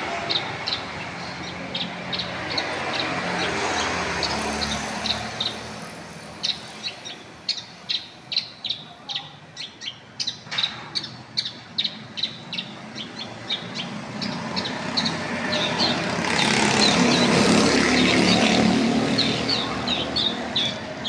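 Long-tailed shrike (cendet) singing a long run of short, sharp chattering notes, about three a second, over vehicle noise that swells loudest near the end.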